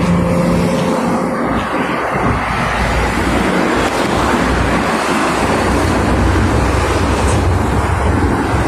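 Steady noise of heavy traffic on a multi-lane highway: container trucks and cars passing, with a low engine drone in the first second and a half.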